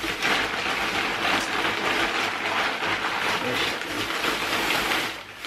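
Large bubble-wrap bag crinkling and rustling as it is lifted out and bunched up by hand, then stopping near the end.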